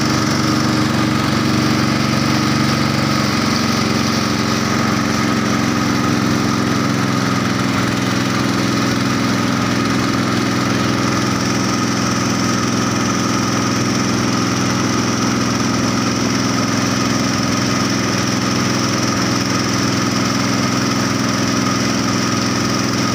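Motorboat engine running steadily at cruising speed, a constant hum whose pitch shifts slightly about seven seconds in.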